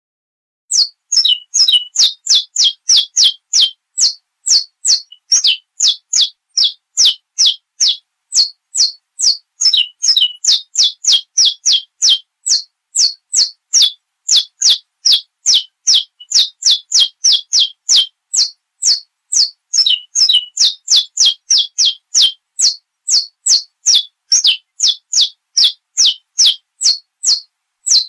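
Saffron finch (canário-da-terra) singing: a long run of high, sharp, downward-slurred notes, about two or three a second, some coming in quick pairs.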